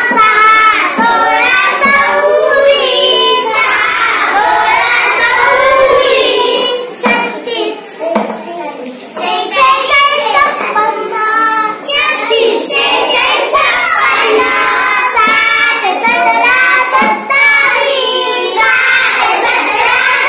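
A young girl chanting Marathi number names in a sing-song voice, reciting a counting chart row by row.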